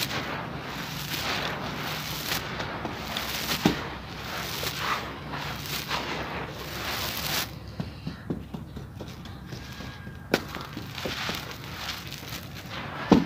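Hands raking and pressing through dry, gritty sand-cement, a crunchy rasp in repeated strokes. About halfway through it drops to soft, grainy crackling with a few sharp cracks, the loudest near the end as a crumbled lump breaks.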